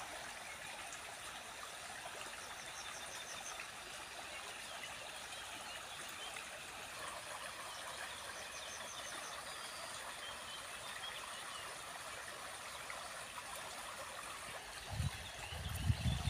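Small stream of water trickling steadily, with a bird giving a short high trill twice in the background. Near the end a low rumbling comes in, louder than the water.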